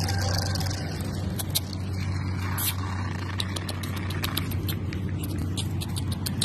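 A string mop's plastic handle dragging and ticking over asphalt as a puppy carries the mop along, with many light irregular ticks. A steady low hum runs underneath.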